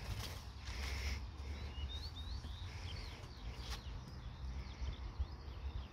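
Small birds chirping, a cluster of short high chirps in the first half, over a steady low rumble on the microphone, with a single click a little past the middle.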